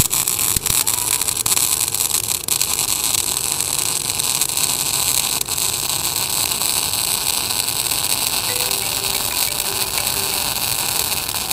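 MIG welding arc from a Tenya MIG 215 welder laying a long bead on 6 mm steel plate at about 185 amps, the wire feeding steadily: a continuous even hiss with fine crackle.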